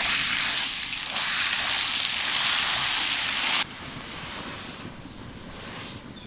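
A block of butter sizzling and spattering as it hits a hot black wok, loud for the first three and a half seconds, then dropping suddenly to a softer steady sizzle as it melts and foams.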